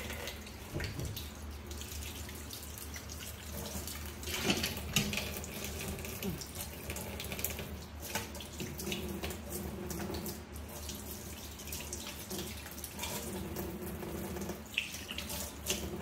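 Kitchen faucet running into a stainless steel sink, the stream splashing over hands being washed under it, with a few louder splashes about four to five seconds in.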